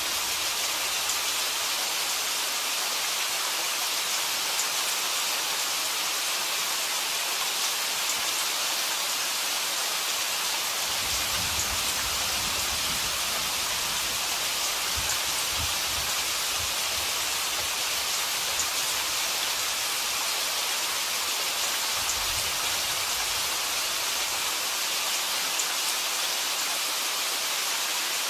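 Steady rain falling, an even hiss with scattered drops ticking through it. A faint low rumble comes and goes in the middle and again later on.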